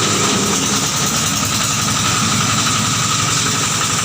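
Grass chopper machine running steadily at an even speed, its engine's rapid firing and a steady high whine unchanging.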